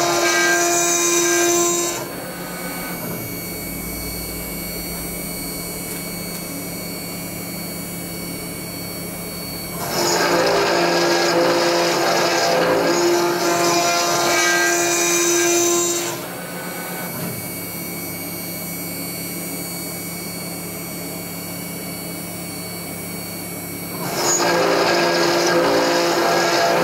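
Mechmate CNC router's spindle and endmill milling 10 mm S355MC steel plate. Loud cutting noise with a steady ringing tone comes in three bouts: at the start, for about six seconds from about ten seconds in, and again near the end. Between the bouts only a quieter, steady spindle whine is heard.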